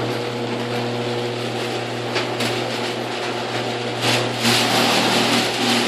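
GeniePro CM8600XL/M screw-drive garage door opener running as it closes the door: a steady motor hum under a loud rattling racket, with a few knocks, cutting off abruptly at the very end as the door finishes. The noise is one the owner puts down to the opener not being insulated, even after lubricating it.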